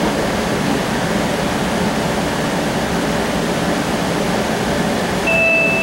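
Steady rumble and hiss inside a moving CAF Urbos 3 streetcar: the running and ventilation noise of the cabin. Near the end a two-note electronic chime sounds, the tone that comes before an onboard announcement.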